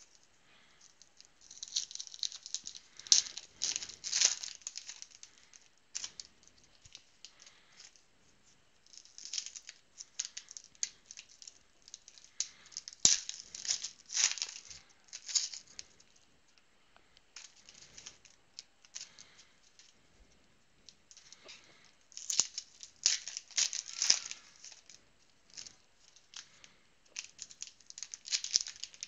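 Foil wrappers of trading card packs being torn open and crinkled by hand, in several spells of crackling with short pauses between.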